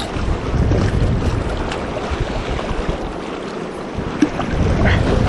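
Choppy river water splashing and rushing against an inflatable stand-up paddleboard as it is paddled through rough current, with a few small paddle splashes. Wind rumbles on the microphone, easing for a moment past the middle.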